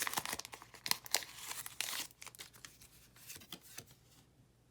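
Foil booster pack wrapper of a Pokémon trading card pack being torn open and crinkled, a dense crackling for about two seconds that then thins out to a few faint rustles.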